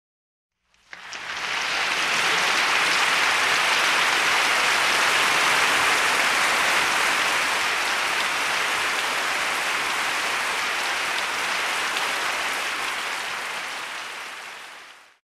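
Applause, a dense steady clapping of many hands, fading in about a second in and fading out near the end.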